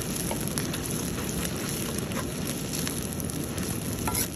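Onions and tomato paste sizzling in hot oil in an iron karahi as they are stirred with a slotted spoon: a steady, crackling fry.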